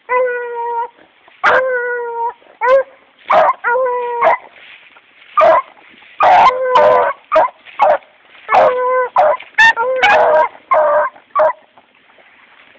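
Hound dog baying: a string of loud, drawn-out howls on a steady pitch, some held for most of a second and others cut short, coming in quick succession and stopping about a second before the end.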